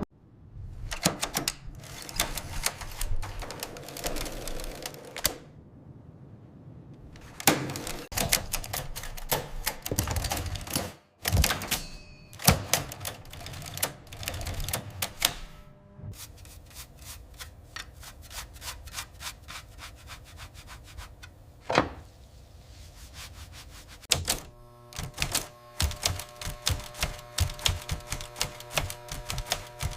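Restored manual typewriter being typed on: rapid runs of key strikes with a few short pauses between them.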